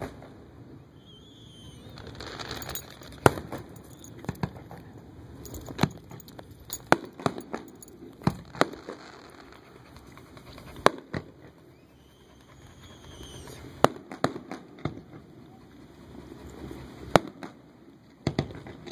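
Fireworks display: aerial shells bursting with sharp bangs at irregular intervals, some in quick clusters, over a low steady background rumble.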